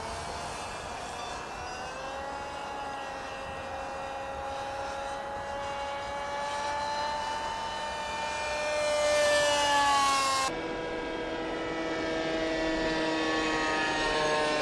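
Fly Cat pusher-prop model plane in flight, its motor and propeller whine sliding slowly up and down in pitch as it passes, loudest about nine to ten seconds in. The whine breaks off abruptly about ten seconds in and carries on at a steadier pitch.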